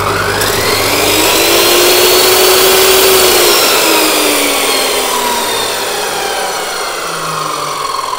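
Weldinger TJ3000 metal cut-off saw with an abrasive disc, running with no load. It spins up on its soft start, the whine rising over the first two to three seconds. Then it is switched off and the disc winds down slowly, the whine falling steadily.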